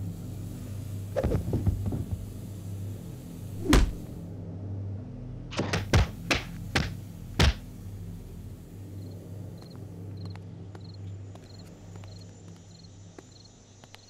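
Film sound design: a steady low drone with a series of sharp thunks, a heavy one just under four seconds in and a quick run of five between about five and a half and seven and a half seconds. From about nine seconds in, a cricket chirps regularly, roughly one and a half chirps a second, as the drone thins out.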